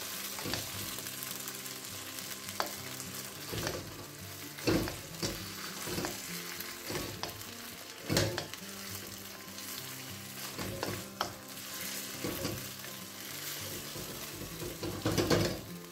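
Chicken wings sizzling in hot sauce in a wok as a wooden spoon stirs them: a steady sizzle with irregular knocks and scrapes of the spoon against the pan.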